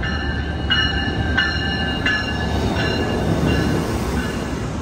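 Siemens SC44 Charger diesel locomotive and bilevel passenger cars rolling slowly past on arrival, a steady low rumble with several short high-pitched wheel squeals in the first two seconds.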